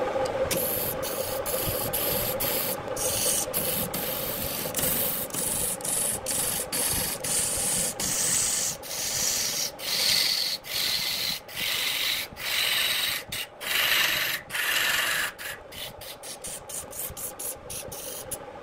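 Wood lathe spinning a wooden vase blank while a hand tool cuts its surface: a steady scraping hiss over the motor's hum, broken by many short gaps where the tool comes off the wood. In the last few seconds the cutting becomes choppier and quieter.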